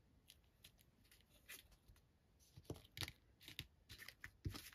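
Faint handling of paper and craft supplies on a table: scattered light taps, clicks and short rustles, busier in the last two seconds, with a couple of soft thuds near the end.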